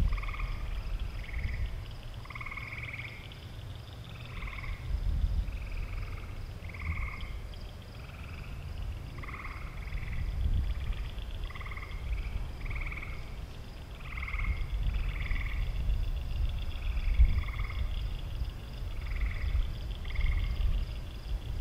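Frogs calling: short two-part croaks, about one a second, overlapping from several animals. A faint steady high pulsing trill and a low rumble run underneath.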